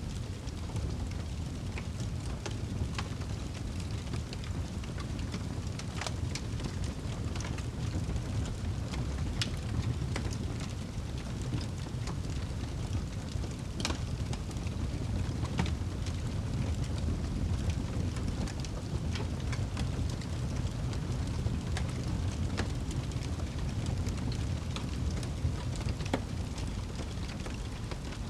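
Crackling wood fire in a fireplace: a steady low rumble of burning with irregular sharp pops and crackles scattered throughout.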